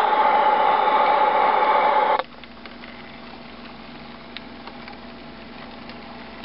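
A model locomotive's onboard sound system playing a loud diesel engine sound, which cuts off abruptly about two seconds in. A faint steady hum follows, with a few light ticks.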